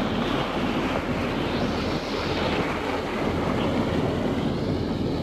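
Passenger ferry under way: its engine drones steadily, mixed with wind on the microphone and the rush of water.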